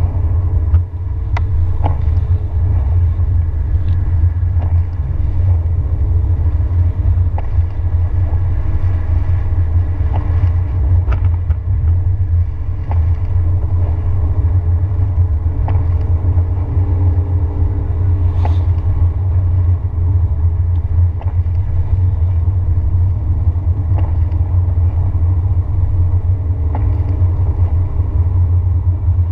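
A car driving at road speed, heard from inside the cabin: a steady low engine and road rumble with a faint tyre hiss, broken by a few brief light ticks.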